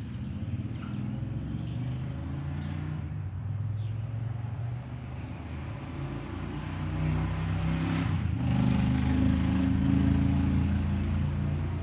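A low, steady motor rumble with a hum that grows louder about two-thirds of the way through.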